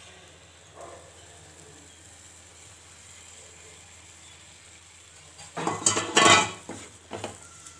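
Jaggery syrup in a hot pan of grated coconut fried in ghee, faintly sizzling. About five and a half seconds in, a louder second or so of scraping and clatter from the pan and its utensils.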